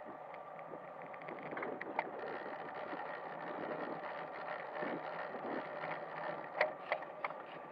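Road bicycle rolling along pavement, picked up by a camera mounted on the bike: steady tyre and drivetrain noise with some wind, and a few sharp clicks late on.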